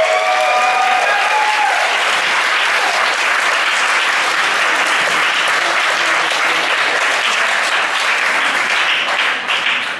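Audience applauding, with a few whoops over the first couple of seconds; the clapping dies away near the end.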